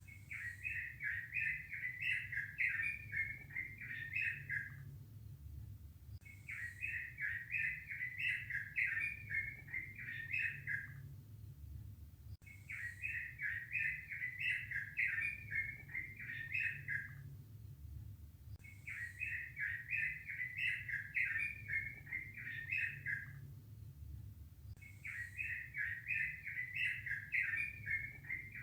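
A songbird singing a phrase of rapid, high warbled notes that lasts about four to five seconds, repeated about every six seconds, five times in all, over a low steady hum.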